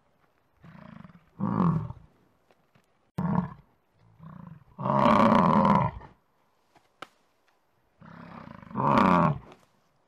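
Bison bellowing: three long bellows about four seconds apart. The first and last rise out of a lower rumble, and two short grunts come just before the middle one.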